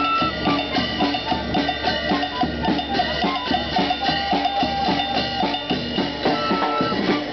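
Folk band music: a vertical cane flute playing a melody over a snare drum and bass drum keeping a steady beat.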